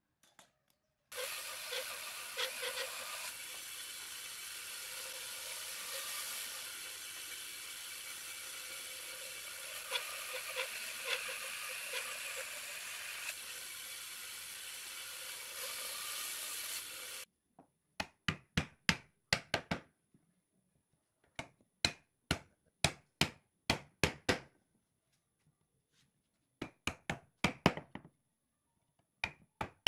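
Band saw running and cutting through a pine block in a long steady pass that stops abruptly; then bursts of sharp knocks as wooden chair parts are hammered together.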